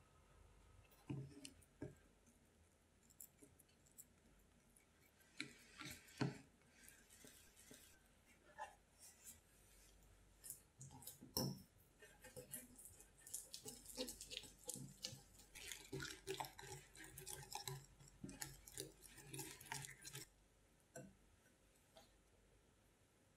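Small wire whisk beating soft cream cheese in a glass mixing bowl, the wires clicking and scraping quickly against the glass from about halfway in until shortly before the end. Before that, a few separate soft taps and knocks.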